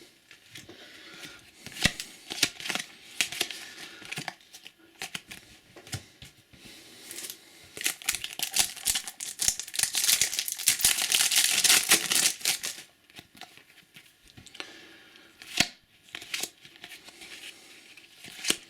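Trading cards being handled, with scattered clicks and rustles, and a crinkly tearing stretch in the middle as a card-packet wrapper is ripped open.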